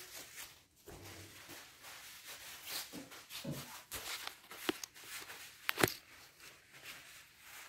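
Quiet workshop with scattered light clicks, knocks and rustles of handling, and one sharper click just before six seconds in as the camera is moved.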